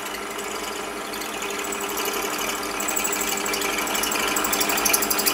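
Warco WM180 bench lathe running, its chuck turning a 6.35 mm drill that is boring a pilot hole into a metal block. There is a steady motor tone under the cutting noise, which grows gradually louder and becomes a fast, rhythmic chatter near the end.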